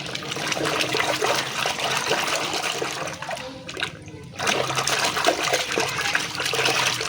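Running water splashing over a muddy toy figure as it is rinsed clean, in two spells with a short break about four seconds in.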